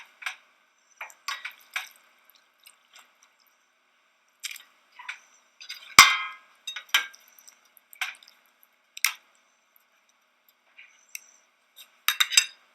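Fried potatoes and onion being mixed into beaten egg in a bowl: scattered wet squelches and clinks of a utensil against the bowl. The loudest knock comes about six seconds in, and a quick run of clinks comes near the end.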